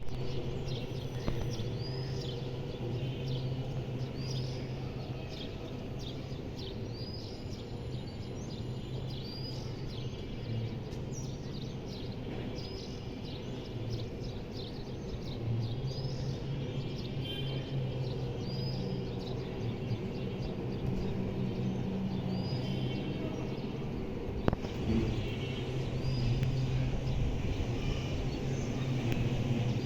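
Steady low drone of the CASA C-295W's turboprop engines running at a distance, growing louder in the last few seconds, with a bird chirping over it about once every second or so. One sharp click about three-quarters through.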